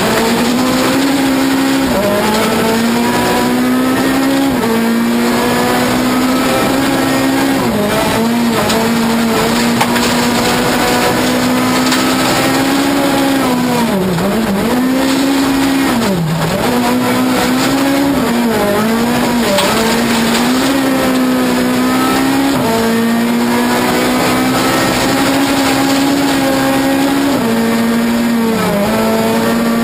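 Ford Fiesta S2000 rally car's naturally aspirated 2.0-litre four-cylinder engine heard from inside the cabin, held high in the revs at full stage pace on gravel. The engine note drops sharply several times for braking and downshifts, most deeply around the middle, and climbs straight back each time.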